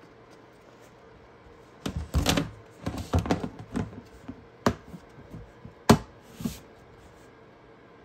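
Scattered light knocks, clicks and rustling as a live feeder rat scurries over paper towel and against the walls of a plastic snake tub, starting about two seconds in, with two sharp clicks near the end.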